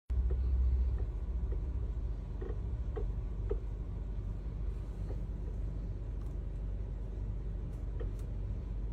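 Car with its engine running, a steady low rumble, and a series of short squeaks about half a second apart in the first few seconds: the steering squealing as the wheel is turned.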